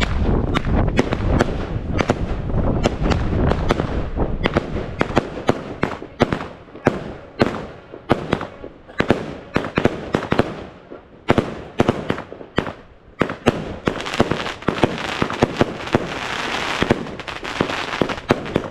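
Fireworks going off in a rapid series of sharp bangs, about three or four a second, with a stretch of dense crackling late on.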